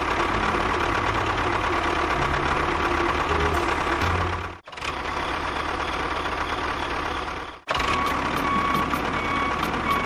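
Vehicle engine sound running steadily, with a faint high steady tone over it. It breaks off sharply twice, about halfway through and again about three quarters of the way through, then resumes.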